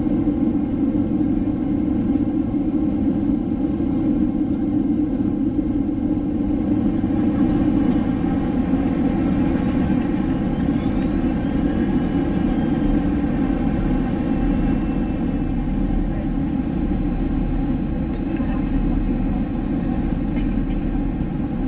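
Steady jet engine and airflow noise inside the passenger cabin of a Boeing 767 in flight, heard from a window seat beside the wing engine.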